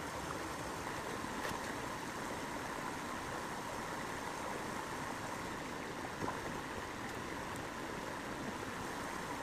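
A small creek cascade, its water rushing with a steady, even wash.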